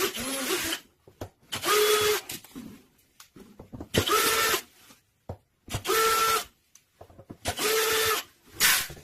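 Cordless power screwdriver whirring in short bursts, five or six times about two seconds apart, as the screws of the fridge's rear cover flap are undone.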